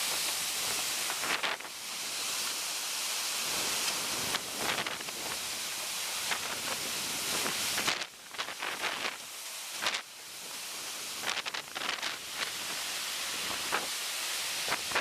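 Storm wind and rushing water: a loud, steady rush that drops away suddenly about eight seconds in, then comes back in uneven gusts and splashes.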